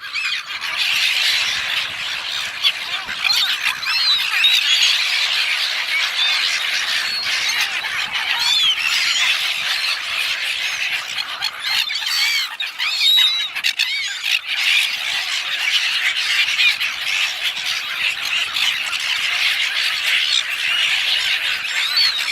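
A flock of gulls squawking and crying as they crowd for thrown chips. Many high calls overlap without a break, thickest around the middle.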